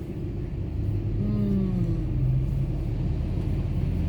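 Car interior rumble from engine and tyres on the road, steady and low.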